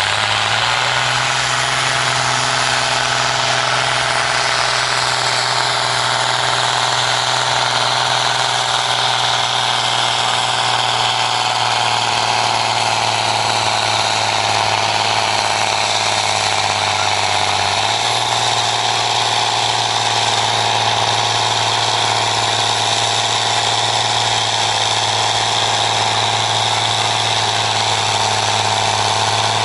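SAME Titan 145 tractor's diesel engine running hard and steadily under full load while it drags a tractor-pulling weight sled. The pitch holds almost constant, with a slight step about two-thirds of the way through.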